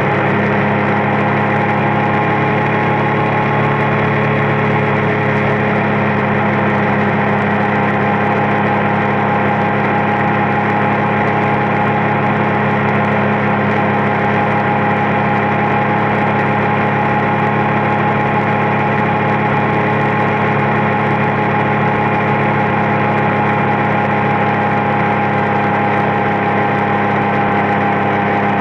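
Triumph Street Triple's three-cylinder engine running at steady revs while cruising, its pitch holding constant, over a haze of road and wind noise.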